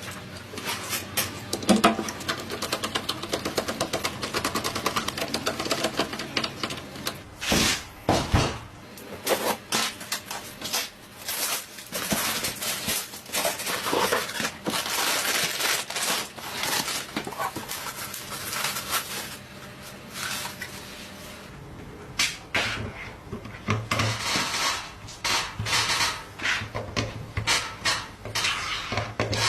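Hands handling computer parts: a run of clicks and knocks with rustling and scraping of plastic and metal.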